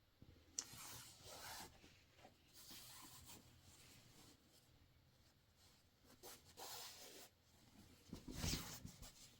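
Faint rustling and scraping in several short bouts, the last and loudest near the end.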